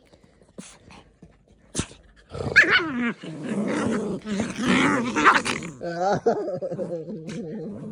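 Two small dogs, a Maltese and a toy poodle, play-fighting and growling. After about two seconds of near quiet with a sharp knock, a short rising yelp sets off a continuous rumbling growl that carries on for the rest of the stretch.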